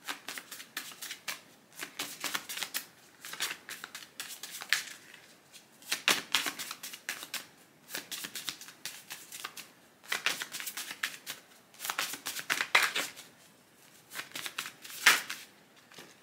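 A deck of tarot cards being shuffled by hand: repeated bursts of cards slapping and rustling against each other, with short pauses between, the loudest slap near the end.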